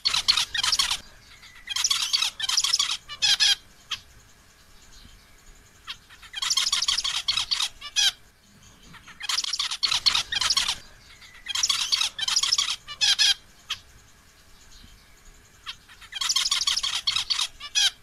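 Male zebra finch singing to a female: about six short song bouts of rapid, buzzy notes, each lasting one to two seconds, with pauses between them.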